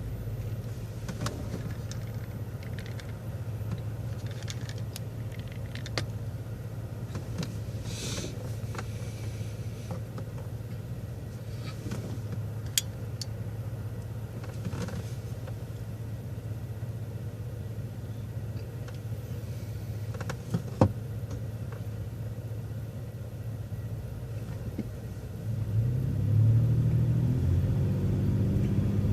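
City transit bus engine running at a steady low hum, with scattered rattles and clicks. About 25 seconds in the engine gets louder and its pitch climbs in steps as the bus accelerates away.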